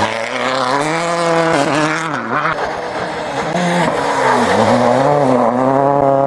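Rally cars' 1.6-litre turbocharged four-cylinder engines braking and downshifting into a tight hairpin and then accelerating hard out of it. The engine note falls and climbs again several times.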